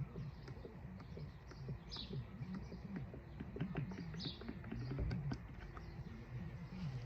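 A bird chirping briefly, about two seconds in and again about four seconds in, over a low wavering hum, with a run of small sharp clicks around the middle.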